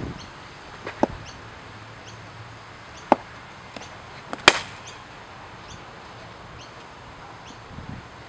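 Cricket bat striking the ball: a sharp crack about halfway through. Two fainter knocks come before it, about a second in and about three seconds in.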